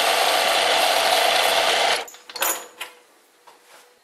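Bernardo Profi 600 G metal lathe running with a steady gear whir while turning a chamfer on a steel part. The noise stops abruptly about two seconds in, followed by a few faint knocks.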